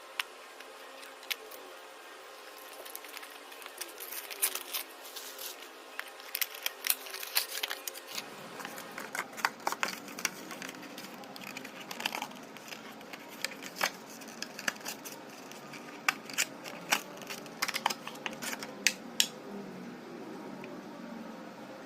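Packaging of a car charger being unboxed: plastic and cardboard crinkling and rustling, with many sharp clicks. The clicks thin out over the last few seconds.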